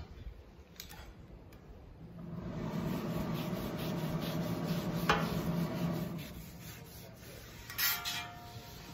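A towel held in tongs rubbing and wiping across the steel griddle plate, spreading a thin coat of oil to season it. The rubbing grows louder about a third of the way in, with a sharp click about halfway through.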